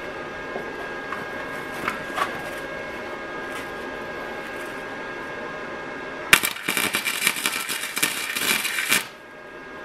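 Wire-feed welder arc crackling for about three seconds, starting about six seconds in, as a weld is laid to fix a steel Z-bar support bracket to the car's underbody. The arc cuts off sharply.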